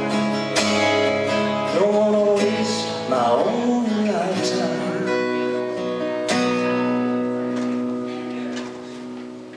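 Acoustic guitar strumming the closing chords of a song, with a man singing briefly over them about two to four seconds in. The last chord, struck about six seconds in, rings out and fades.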